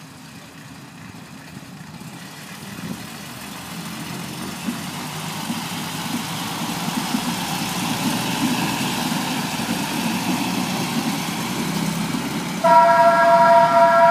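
DB Class 798 Uerdingen railbus running past, the rumble of its underfloor diesel engines growing steadily louder. Near the end the railbus sounds one loud, steady horn blast.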